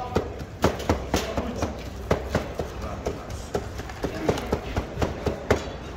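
Knives chopping cooked meat on a plastic cutting board: an uneven run of sharp knocks, about three a second.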